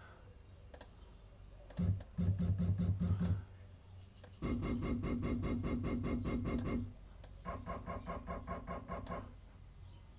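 A Shapeoko CNC's stepper motors jogging the router bit down toward the touch probe. The moves come in three bursts of quickly repeated short steps, each burst at a different pitch.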